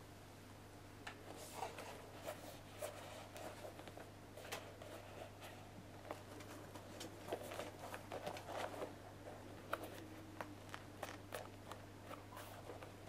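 Football boots and their packaging being handled: faint scattered clicks, taps and rustles over a low steady hum.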